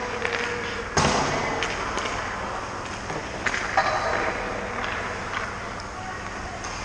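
A hockey puck struck hard: one loud, sharp crack about a second in, echoing in the rink, over the scrape of skates on ice, with a few lighter clicks later.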